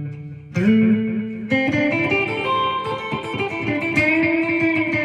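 Electric guitar, a Gibson Les Paul through a Marshall amp and an Electro-Harmonix Echo digital delay pedal, picking a few notes that ring out. The delay blend is turned down, so the echoes taper off behind each note while the main note stays pronounced.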